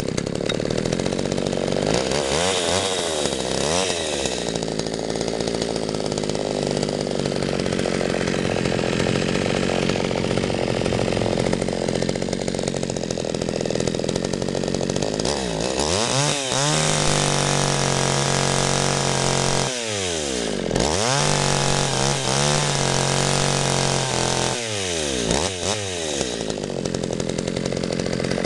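McCulloch Mac 120 two-stroke chainsaw running, idling with a few short throttle blips, then revved up to full speed twice in the second half, each time held for a few seconds before dropping back to idle. It runs well, starting and running good.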